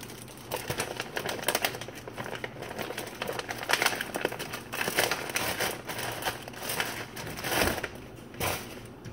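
A clear plastic bag crinkling and rustling as it is handled, in dense irregular crackles, with a knock a little before the end.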